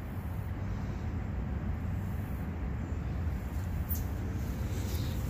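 Steady low rumble of road traffic going by.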